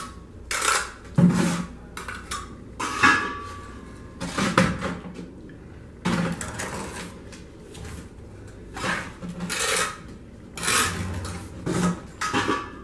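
Ceramic hollow blocks scraped and knocked against the rim of a galvanised metal bin as they are dipped in mortar and the excess wiped off: a run of short scrapes and clinks, a couple of them ringing briefly.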